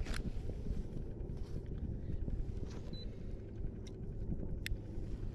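Steady low wind noise buffeting the microphone on an open kayak at sea, with two sharp clicks: one right at the start and one near the end.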